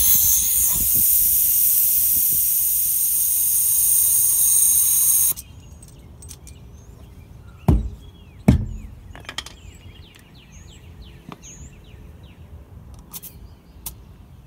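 Air hissing out of a horse-trailer tyre's valve stem through a deflation chuck as the tyre is aired down from its 65 psi toward 30 psi. The hiss cuts off suddenly about five seconds in. A couple of seconds later a hammer strikes the tyre twice, less than a second apart: the thump test, and the tyre still sounds inflated although it is at less than half its correct pressure.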